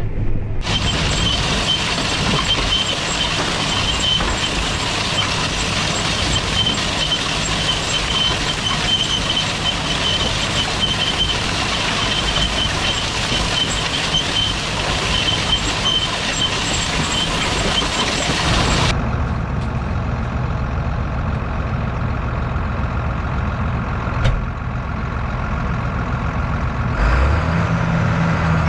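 Farm tractor's diesel engine running under load. For the first two-thirds it is a loud, even rush with a thin high whine. It then changes suddenly to a lower, steadier engine drone, which rises in pitch near the end.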